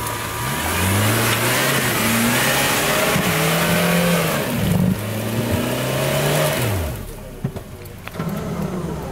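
Suzuki Jimny's engine revving hard under load while its tyres churn through deep mud, the pitch climbing and holding in several surges, over a loud hiss and splatter of spinning tyres throwing mud. The revs fall away about seven seconds in, leaving a lower engine note.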